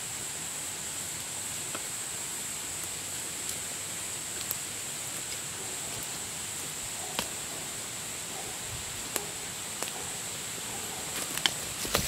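Quiet forest ambience with a steady high hiss, broken by a few scattered crunches of footsteps on dry leaf litter that come thicker near the end.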